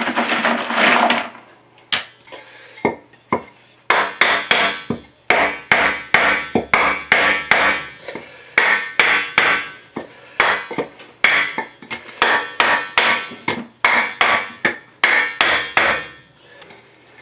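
Hand-tamping backfill in a small trench: a flat tool strikes the packed dirt and old concrete chunks again and again, about two sharp blows a second, after a short scraping rush near the start.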